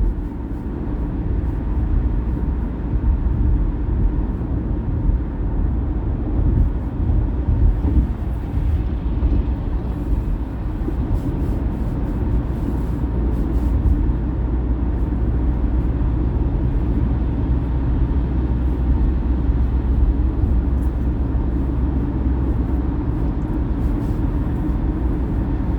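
Steady road noise heard from inside a car driving at highway speed: low tyre and engine rumble with wind hiss.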